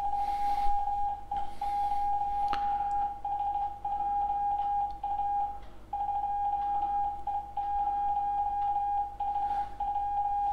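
Morse code beeping from a DCT QRP transceiver kit's auto-CQ keyer, sending 'CQ CQ CQ DE 2E0SJA 2E0SJA' at 16 words a minute. It is a single steady tone keyed on and off in dits and dahs, with a slightly longer gap near the middle.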